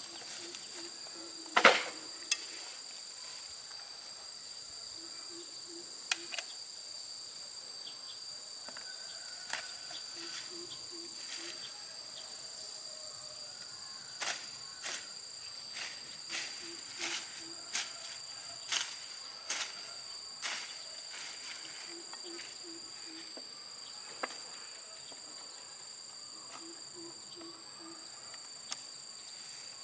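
Insects chirring steadily and high-pitched, with a low four-note call repeating every five or six seconds. Scattered clicks and knocks sound throughout, with a loud knock about two seconds in.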